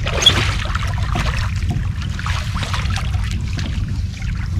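Water splashing and dripping as a hooked meagre is scooped out of the water in a landing net at the side of a small boat, over a steady low rumble.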